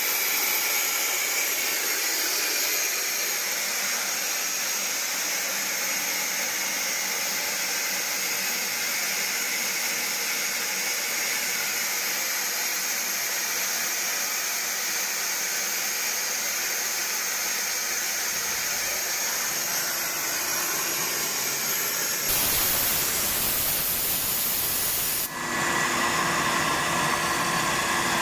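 Compressed air hissing steadily as the pressurised air receiver is vented to let the pressure fall. About 22 seconds in, the ALUP COMBI screw compressor cuts in with a sudden louder start. It dips briefly about three seconds later, then runs steadily, building pressure.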